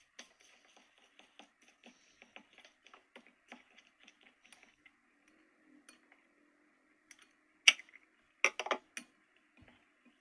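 Plastic spatula stirring foam beads in a glass bowl: a steady patter of small crunchy ticks. After a pause, one sharp loud crack and then a quick handful of loud clicks near the end.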